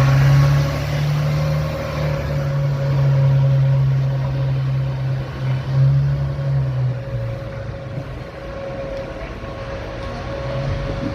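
VDL DB250 bus engine running under power, then easing off about seven seconds in, over the steady high whine of its electric cooling fan, the 'e-fan hoover' noise.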